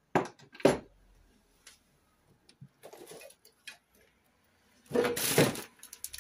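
Clicks and a sharp metal clank as a longer bar is fitted onto a Simca Aronde cylinder-head bolt, then a longer rasping sound about five seconds in as the bolt is strained on.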